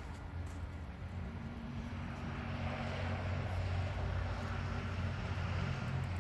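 A low engine drone with a steady hum, swelling over a couple of seconds and holding.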